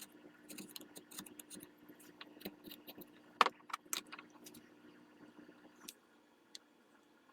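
Hand chisel taking small paring cuts in a walnut gunstock where the buttplate tang seats: a run of sharp clicks and light taps, the loudest about three and a half seconds in.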